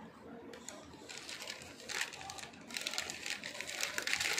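Crunchy chips being chewed close to the microphone: dense crackling crunches that grow louder a little under three seconds in.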